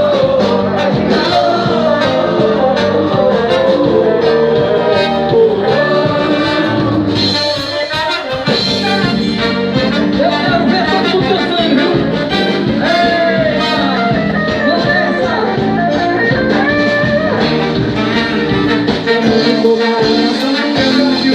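A live band playing a song, with a singer's voice and brass over a steady accompaniment.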